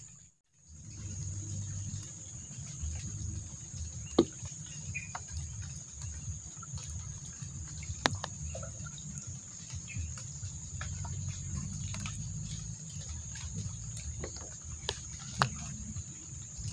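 Steady high-pitched drone of night insects over a low rumbling background, with a few sharp clicks. The sound drops out briefly just after the start.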